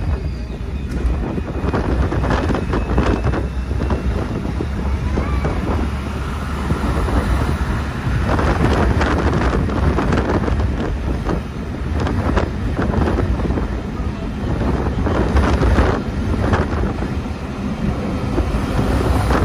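Wind buffeting the microphone in uneven gusts over the steady rumble of a car driving at speed.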